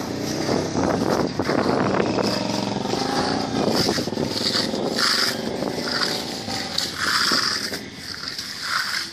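An engine running steadily, with short scraping strokes on top of it that come and go every second or so.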